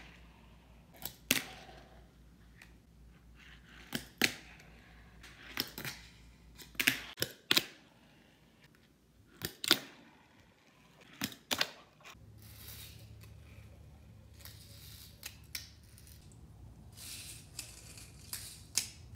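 Fingerboard (a finger-sized skateboard) doing tricks on a tabletop: about a dozen sharp, irregular clacks of the deck and small wheels popping and landing, with a light rolling hiss of the wheels in the second half.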